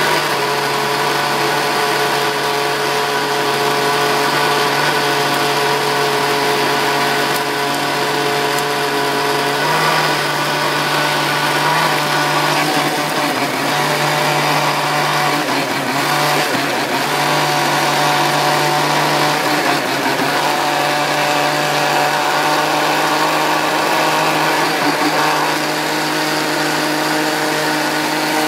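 Electric countertop blender running steadily, its motor humming as it purées green vegetables and red peppers in liquid. The pitch shifts slightly about a third of the way in and dips briefly around halfway as the contents churn.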